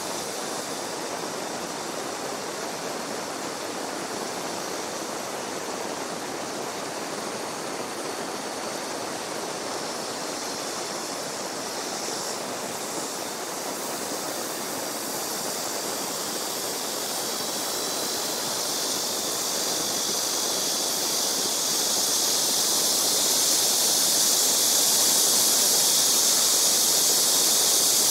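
Steady rushing of running water, with a high insect chorus above it that swells louder over the second half.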